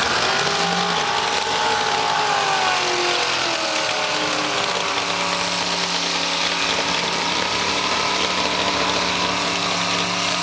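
Lifted mud-bog truck's engine working through deep mud. Its pitch rises and falls with the throttle over the first few seconds, then holds fairly steady.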